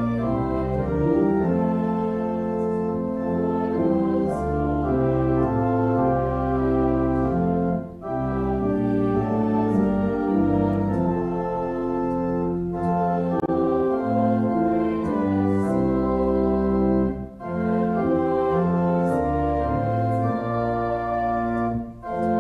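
Pipe organ playing sustained chords in phrases, with short breaks between phrases about 8, 13 and 17 seconds in.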